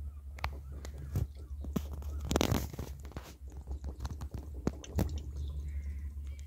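Air bubbles gurgling and popping up through coolant in the radiator filler neck of a Daihatsu Hijet 1.3, with a louder glugging gush about two and a half seconds in: trapped air being bled out of the cooling system as it fills. A steady low hum runs underneath.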